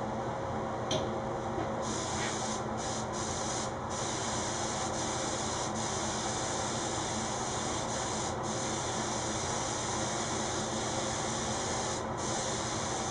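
Gravity-feed spray gun hissing as compressed air atomizes a tinted finish onto a guitar body. The spraying starts about two seconds in and stops for short moments several times as the trigger is released, over a steady background rush.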